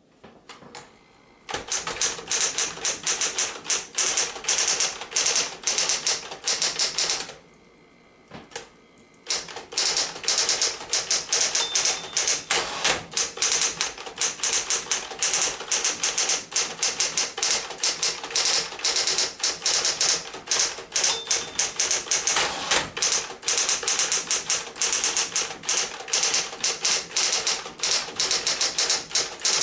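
Smith-Corona Electra 220 Automatic electric typewriter typing in fast runs of key strikes. About seven seconds in, the typing stops for roughly two seconds, leaving only the faint hum of the running motor, then resumes.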